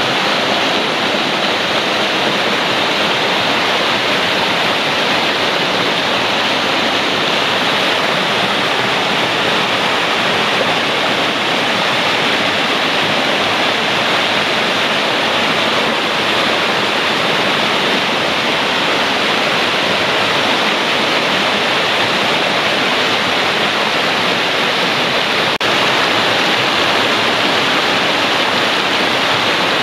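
Mountain torrent rushing through white-water rapids over rocks: a steady, loud, unbroken rush of water.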